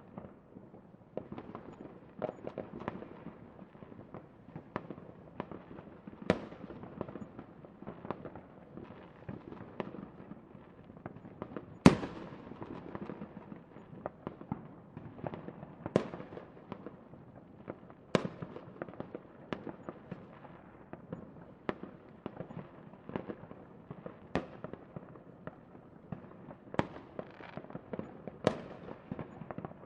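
Fireworks going off in a steady run of bangs and crackles, several at a time. The single loudest bang comes about twelve seconds in.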